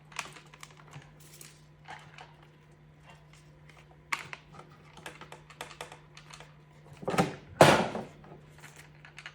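Light clicks and taps of hands handling a portable fan's plastic covers and screws, with two louder scraping handling noises about seven seconds in. A low steady hum runs underneath.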